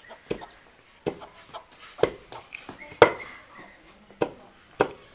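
Knife and cleaver chopping simmered dried buffalo hide on wooden chopping boards: six sharp knocks, roughly one a second. The hide has been simmered to soften it so it cuts more easily.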